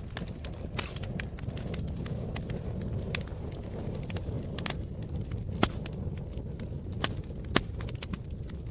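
Campfire crackling: irregular sharp snaps and pops over a steady low rush, with two louder pops in the second half.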